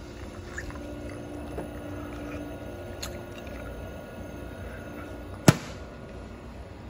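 Frigidaire countertop ice maker running with a steady hum. Near the end, a single sharp clack as its plastic lid is shut.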